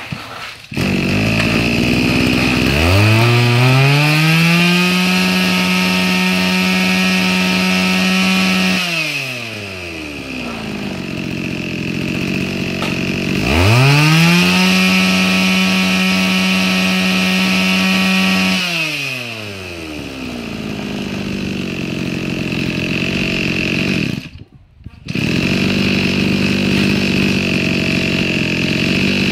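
Mitsubishi TL23 23cc two-stroke brush cutter engine starting about a second in and idling. It is twice revved up to a high steady speed for several seconds and let back down to idle. Near the end it cuts out for about a second, then runs at idle again.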